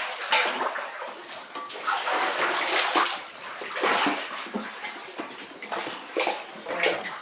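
Floodwater sloshing and splashing as people wade through a flooded house, in irregular surges with each step.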